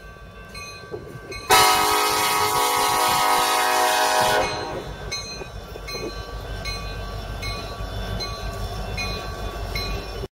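A Canadian National diesel locomotive's air horn sounds one loud, long blast of about three seconds, starting about a second and a half in. The grade-crossing signal bell dings about twice a second throughout, and after the horn the low rumble of the passing freight train grows under the bell. The sound cuts off just before the end.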